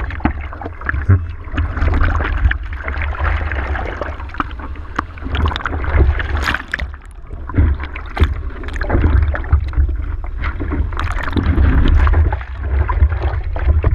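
Seawater splashing and sloshing over a surfboard and against a board-mounted GoPro Hero3 as small waves wash across the deck, in irregular splashes over a steady low rumble.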